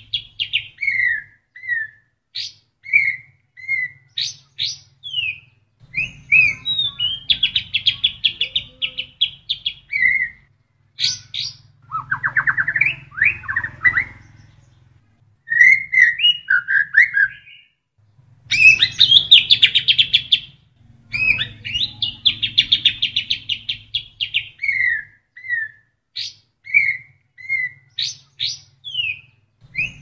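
White-rumped shama (murai batu) singing a varied song of rapid trills and whistled up-and-down slurs in short phrases separated by brief pauses, with mimicked kapas tembak calls worked into it.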